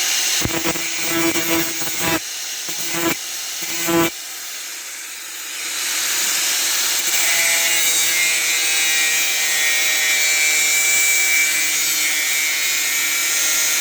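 Angle grinder working on thin metal pipe: a few short stop-start passes, then one long steady pass, its whine slowly dropping in pitch as it is pressed into the metal.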